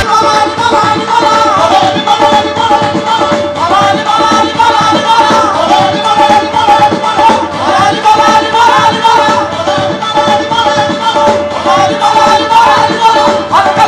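Qawwali music: a voice singing wavering, ornamented lines over a held harmonium note, with tabla and rhythmic strokes driving it along.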